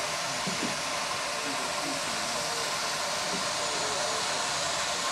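GWR 2800-class 2-8-0 steam locomotive 3803 moving slowly, with a steady hiss of escaping steam.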